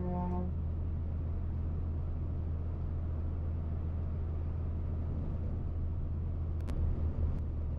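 Heavy freight truck cruising on an expressway: a steady low engine drone with an even hiss of tyre and road noise. A short electronic beep sounds right at the start, and a couple of faint clicks come near the end.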